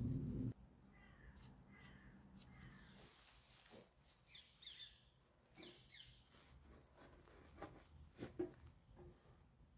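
A low hum cuts off abruptly about half a second in. Then faint bird chirps, mixed with scattered light clicks and taps from handling objects, the sharpest near the end.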